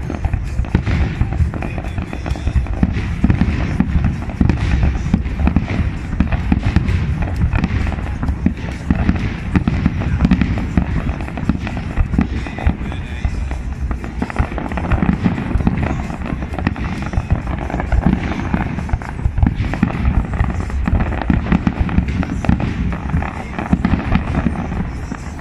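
Aerial firework shells bursting in a dense, continuous barrage: many bangs in quick succession, without a break.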